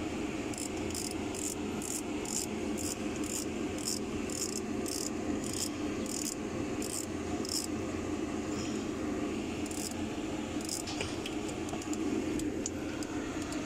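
Insect chirping in a regular series of short, high chirps, about two to three a second, slowing and stopping about halfway through, with two more chirps later, over a steady low hum.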